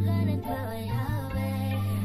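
Background music, with long held bass notes under a melody.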